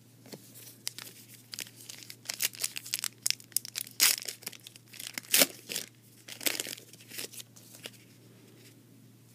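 A foil trading-card pack being torn open, its wrapper tearing and crinkling in a run of irregular crackles, loudest about four and five and a half seconds in.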